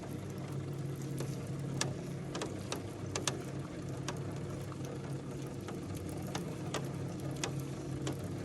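Steady mechanical hum of a cable lift descending into a volcanic crater, with scattered light clicks and ticks.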